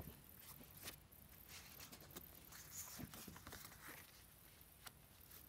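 Near silence with faint rustles and light taps, about half a dozen, from stiff photo postcards being handled and shuffled.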